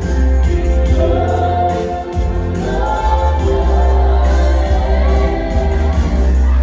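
Waltz music with singing over a strong, steady bass line.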